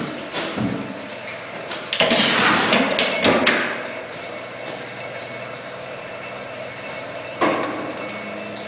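Hydrogen-fuelled 3/4-scale replica Otto & Langen atmospheric free-piston engine running: a sharp bang about two seconds in, followed by a rapid run of knocks lasting about a second and a half, the power stroke of this engine. There are smaller knocks near the start and another sharp knock near the end.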